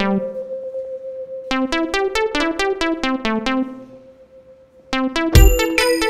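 Background electronic music: quick, evenly spaced plucked synthesizer notes over a held tone. It drops away briefly about two-thirds of the way through, then comes back louder with a heavy bass beat near the end.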